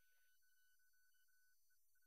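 Near silence: a faint hiss with a faint high tone that breaks on and off.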